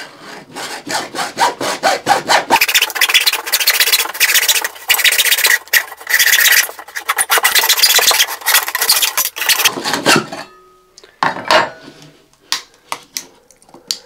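Hacksaw cutting through a plastic pipe in steady back-and-forth strokes, stopping about ten seconds in as the cut goes through. A few short knocks follow as the cut-off end is handled.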